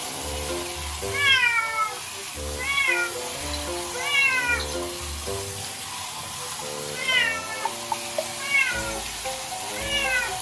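A domestic cat meowing six times, each call falling in pitch, over background music with a steady beat.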